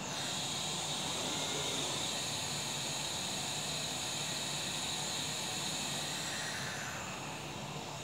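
Spindle of a Reksis CNC woodworking machine with an HSD aggregate head running with a steady high-pitched whine over a hiss; the whine fades with a falling tone near the end.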